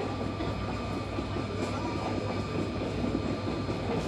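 Steady rumble with a faint high whine from an Airbus A330's jet engines at taxi idle as the airliner rolls in toward the gate, muffled as heard from inside the terminal.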